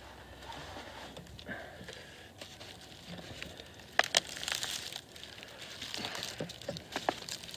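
Close handling noise: faint rustling and light crinkling, with a couple of sharp clicks about four seconds in and a few lighter ones near the end.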